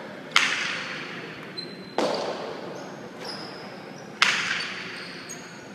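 Jai alai pelota cracking hard against the fronton's walls and floor during a rally, three sharp hits about two seconds apart. Each hit echoes long through the large hall.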